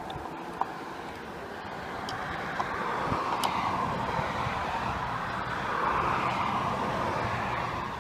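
Road traffic passing by: a swell of vehicle noise that builds over a few seconds and fades near the end, with a few small clicks in the first second.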